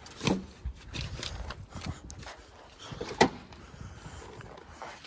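Scattered knocks and clanks of hand work on an old Ford Ranger pickup's cab, around the rear window, with one sharp strike about three seconds in the loudest.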